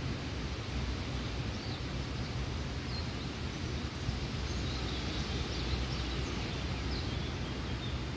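Outdoor ambience: a steady low rumbling hiss, with faint, brief high bird chirps scattered through the middle.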